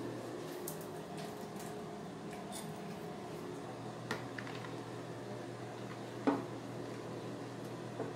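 A spoon stirring thick foamy slime in a plastic tub, knocking against the tub with a few sharp clicks, the loudest about six seconds in, over a steady low hum.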